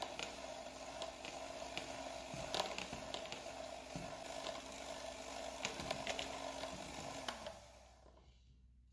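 Electric mixer's twin beaters whipping vegetable cream in a plastic bowl: a steady motor hum with occasional short clicks. The motor switches off about seven and a half seconds in, leaving near silence.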